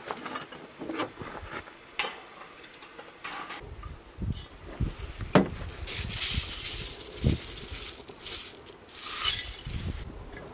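Glass jars clinking and knocking as a large jar is packed with spices, jalapeño slices and hard-boiled eggs. From about three and a half seconds in, wind rumbles and gusts on the microphone, loudest twice near the middle and near the end.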